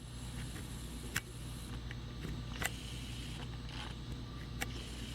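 Three sharp clicks about a second and a half apart, over a low steady hum.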